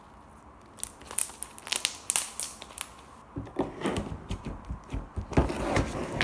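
Slime being stretched and squished by hand, giving sharp sticky pops and clicks, then from about halfway louder, denser crackling squelches with low knocks.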